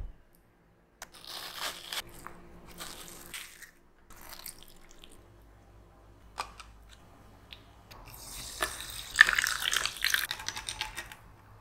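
Kitchen handling noises: a low thump at the start, then scattered rustles and clicks. Loudest, over the last few seconds, comes a dense fizzing and crackling as carbonated water is poured over fruit ice cubes in a glass.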